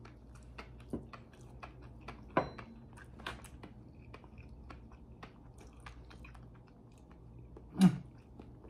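Close-up mouth sounds of a man chewing soft raw fish sashimi, with small wet clicks and smacks scattered irregularly. A short, louder throat sound that drops in pitch comes near the end.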